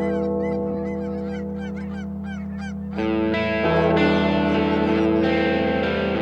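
A flock of geese honking, many calls overlapping, over a held electric-guitar chord. About three seconds in, louder distorted electric-guitar music comes in and covers the honking.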